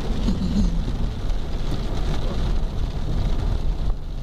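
Steady low road and engine rumble inside a moving car on a rain-soaked street, with the hiss of rain on the car.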